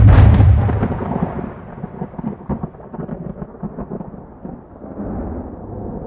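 A sudden loud boom that dies away over about two seconds into a low, crackling rumble, like a thunderclap; a sound-design hit under a cut to black.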